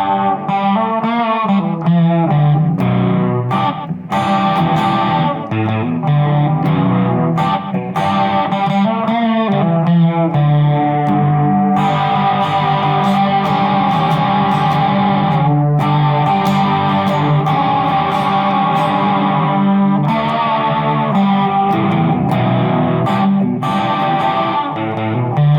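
Electric guitar played through distortion and effects. About twelve seconds in, the playing turns fuller, with longer held notes.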